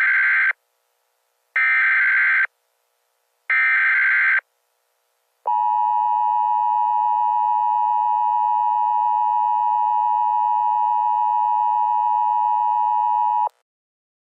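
Emergency Alert System header: three short bursts of warbling SAME data tones about a second apart, then the steady two-tone EAS attention signal, held for about eight seconds before it cuts off.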